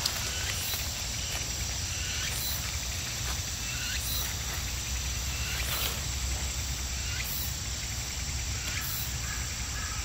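Insects chirring steadily, with a higher pulsing call repeating about every second and a half and a few faint short chirps, over a low rumble.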